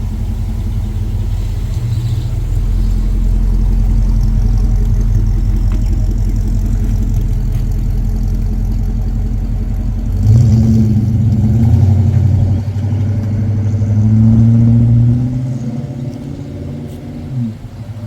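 Holden VK Commodore's V8 engine running as the car drives off, a steady low drone at first. About ten seconds in it gets louder, the pitch rising and falling as it accelerates, then eases off near the end.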